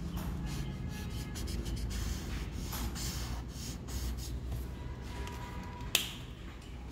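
Felt-tip marker rubbing over paper in quick short strokes as a drawing is coloured in, then a single sharp click about six seconds in.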